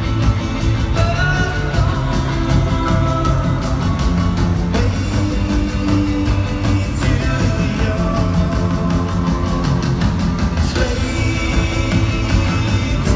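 Live rock band playing loud amplified music in an arena, with electric bass, electric guitar and drums, heard from the crowd.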